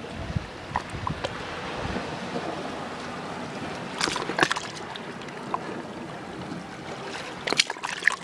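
Sea water lapping and sloshing in a steady wash, with short sharp splashes about four seconds in and again near the end.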